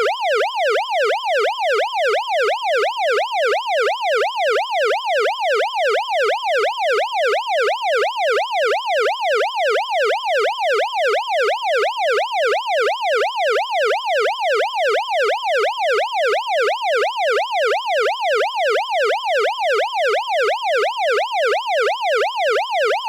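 Electronic police siren in fast yelp mode: a loud pitched wail sweeping up and down about two and a half times a second, repeating evenly without a break.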